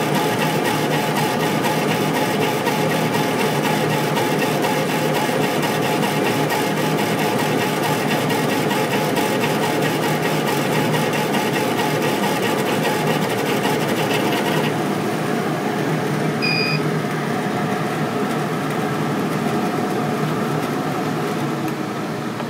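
Laser engraver raster-engraving a photo into cherry wood: the head carriage sweeps rapidly back and forth with a fast, even mechanical rattle over the steady hum of the machine's fan. About 14 seconds in the sweeping stops as the engraving finishes, leaving the fan hum, and a short beep sounds a couple of seconds later.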